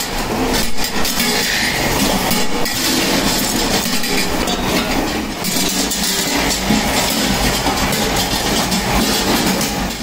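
Metal workshop din: continuous clattering and clinking of metal pots and parts over a steady low rumble.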